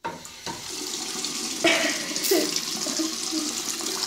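Bathroom sink faucet running, water streaming into the basin and over a small toy held under the tap. A steady rush that grows a little louder about a second and a half in.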